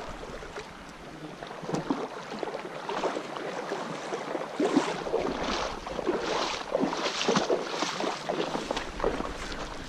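Wading steps sloshing and splashing through shallow river water and onto a wet, grassy bank, in irregular strokes that grow busier about halfway through.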